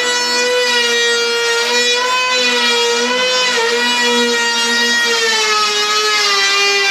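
DeWalt DCP580 20-volt cordless hand planer running with a steady high-pitched whine, cutting along the paint-covered edge of a wooden door. Its pitch dips slightly a few times as the blades bite.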